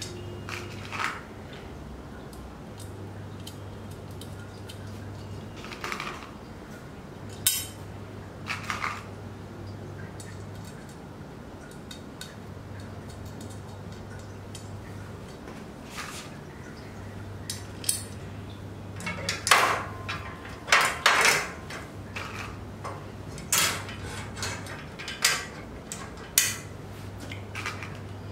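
Scattered metallic clinks and clanks of metal angle gusset bars and small bolts and nuts being handled and fitted to the legs of a CNC router stand. A cluster of louder clanks comes about two-thirds of the way through.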